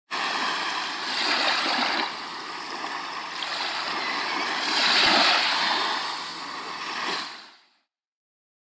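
Sea waves surging and washing, swelling twice and fading out near the end.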